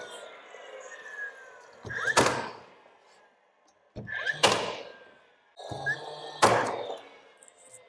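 Nails being driven into a timber architrave against the door liner: three sharp thunks about two seconds apart, each with a quieter lead-in just before it.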